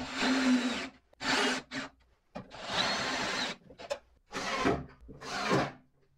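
Cordless drill/driver and impact driver driving screws into plywood, in about six short bursts of under a second each with brief pauses between them.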